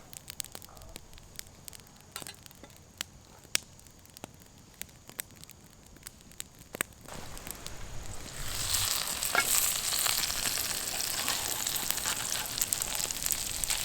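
Potatoes frying in a cast iron skillet over a campfire: a few scattered pops at first, then a steady sizzle that swells up about eight seconds in and holds.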